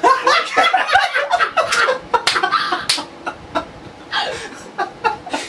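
Two men laughing hard together, in many short, rapid bursts.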